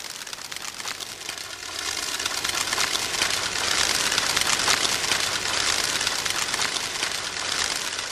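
A flock of doves beating their wings as they take off together: a dense fluttering that builds to a peak about four seconds in, then slowly eases.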